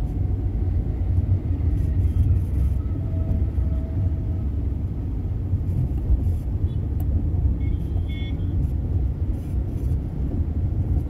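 Steady low rumble of road and engine noise heard from inside a moving car, with a brief faint high beep about eight seconds in.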